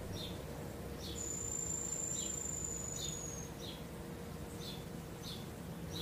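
Small birds giving short, high chirps at irregular intervals, about once a second. About a second in, a thin, very high steady whistle starts and holds for a little over two seconds. A faint low steady hum runs underneath.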